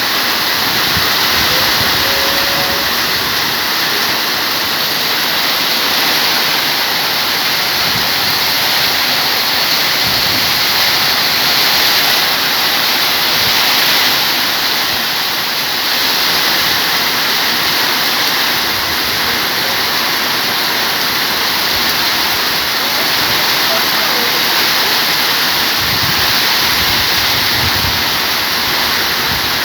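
Heavy rain falling steadily, a loud unbroken hiss.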